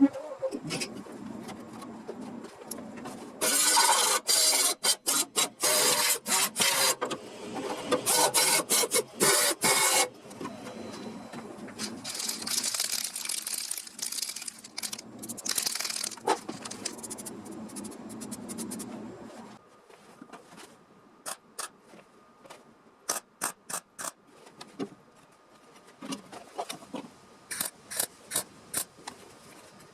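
Hand scraping and rubbing on the rusted sheet metal of a car body: loud strokes in quick bursts for several seconds, then softer rubbing. Near the end come a scatter of short, sharp ticks and taps.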